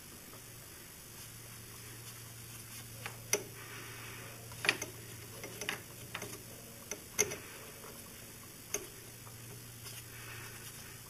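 A strap wrench being worked on a motorcycle oil filter to loosen it: a few scattered, irregular clicks and knocks, the loudest about five and seven seconds in, over a faint low hum.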